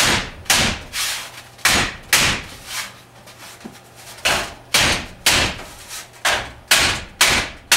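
Sheet metal being struck over an angle iron clamped to a workbench to form a 90-degree bend: about eleven sharp metallic blows in groups of two or three, each ringing briefly.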